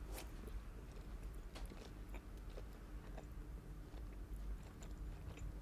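Faint chewing: a person working a mouthful of food, with small scattered mouth clicks.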